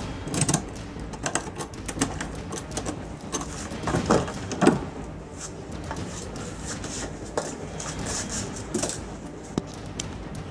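A key turning in a keypad entry door lock and the lever handle working: a run of metallic clicks and rattles, with the loudest knocks about four seconds in. The door then opens, with scattered light knocks and shuffles.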